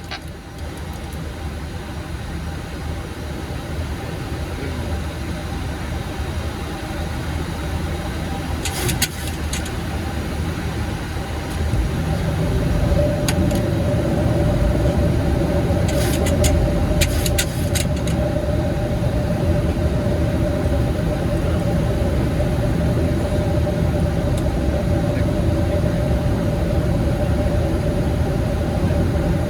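Boeing 737 MAX flight-deck noise on approach: a continuous rumble of airflow and engines that grows louder about twelve seconds in, joined by a steady hum. A few brief clicks come around nine seconds in and again a few seconds later.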